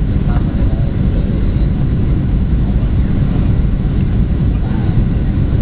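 Steady low roar inside the passenger cabin of a Boeing 737-800 in descent on approach: its CFM56-7B turbofan engines and the rush of air over the fuselage, even and unbroken.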